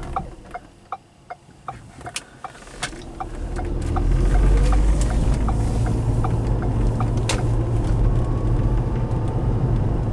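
Cabin of a 2010 Ford Fusion Hybrid: the turn signal ticks steadily, about three times a second, while the car sits quietly. About three seconds in it pulls away, and low road and drivetrain rumble builds with a faint rising tone as it speeds up, then holds steady.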